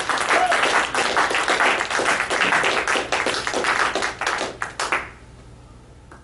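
Small audience applauding with many hands clapping, dying away about five seconds in.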